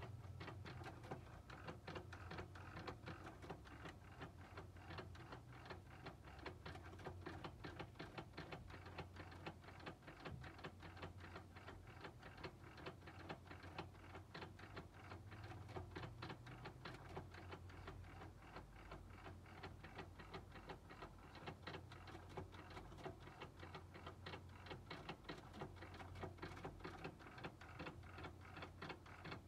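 Sony three-head cassette deck's tape transport in play mode, ticking rapidly and evenly over a faint low hum. The deck is faulty: the tape counter scarcely moves.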